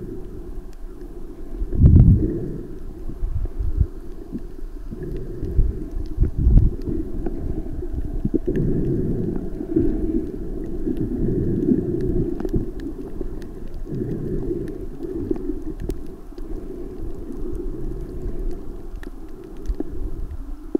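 Muffled underwater noise heard by a submerged camera: a low churning rumble of water moving around it, with a couple of heavier low thumps in the first seven seconds.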